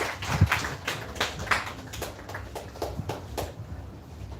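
Scattered hand claps from a congregation, thinning out and dying away about three and a half seconds in.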